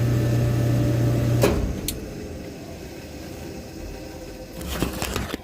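Samsung clothes dryer's failing motor giving a loud, steady low hum that stops with a click about a second and a half in, followed by another click and a couple more near the end.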